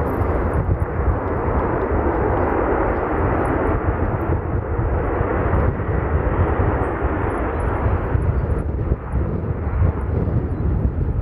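Jet aircraft engines, a loud steady rush of noise with a deep rumble underneath.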